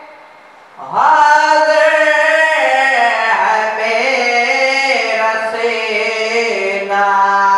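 A young man's solo voice singing a noha, a Shia mourning lament, unaccompanied into a microphone. After a brief pause he comes in about a second in with long, held notes that glide slowly in pitch.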